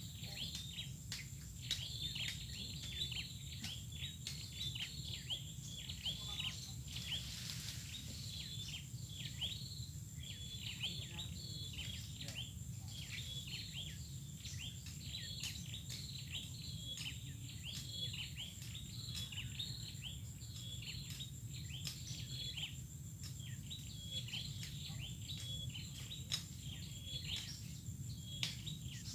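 Birds chirping in the swamp forest: many short, falling chirps, several a second, over a thin steady high insect drone and a low background hum.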